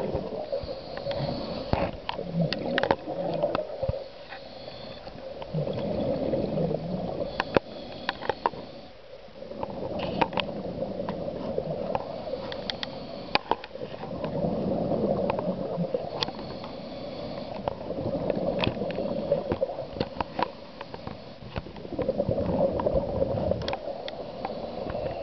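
Scuba diver's regulator breathing underwater: slow cycles of bubbling exhaust that swell and fade every four to five seconds, with scattered sharp clicks.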